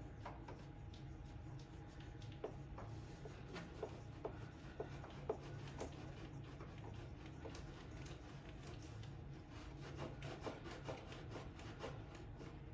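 Faint rubbing with scattered light clicks: hand work at the engine's oil filter mount, wiping it clean and fitting the oil filter.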